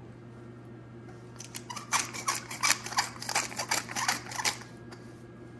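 Glass pepper mill being twisted, grinding black peppercorns: a fast run of clicks starting about a second and a half in and stopping near the end.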